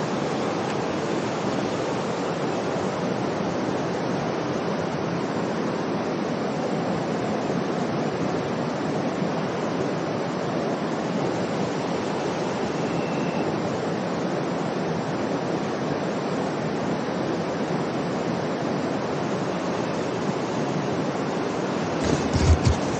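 Steady rush of a fast mountain river flowing over rocks, an even noise that does not let up. A few low thumps on the microphone come about a second before the end.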